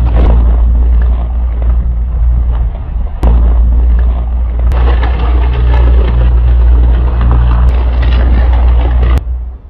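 Electrical arc on overhead power lines: a loud, steady low buzz with crackling noise over it, dipping briefly about three seconds in and cutting off a little after nine seconds.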